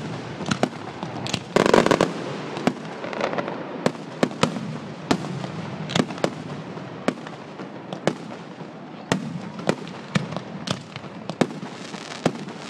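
Aerial fireworks going off: a loud, dense cluster of bangs and crackling about one and a half seconds in, then irregular single sharp bangs every half second or so.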